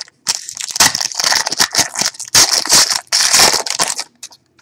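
Plastic trading-card pack wrapper crinkling and crackling as it is torn open and handled, for about four seconds.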